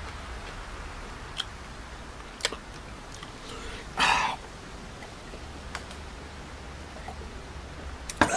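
A man drinking from a glass mug: one short, loud breathy sound about four seconds in, with a few light clicks and knocks of things being handled on a table before and after, and a quick pair of knocks near the end.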